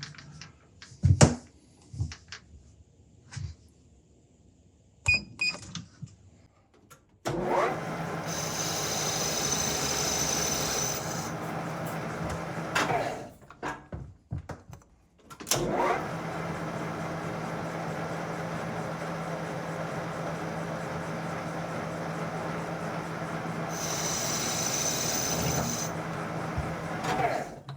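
Small metal lathe motor running steadily in two stretches, with a hissy high edge as the tool cuts, as a part is taken down little by little to a press fit. Light handling clicks come first.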